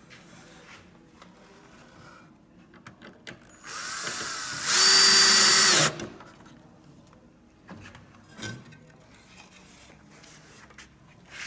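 Ryobi cordless drill driving a screw through the bottom of a cedar back slat: it starts slowly about three and a half seconds in, runs at full speed at a steady pitch for about a second, then stops abruptly. A couple of light knocks follow later on.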